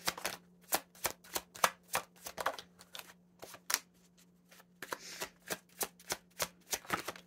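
Tarot cards being shuffled by hand and dealt onto a table: a quick, irregular run of sharp card snaps and slaps, with a short lull a little before halfway.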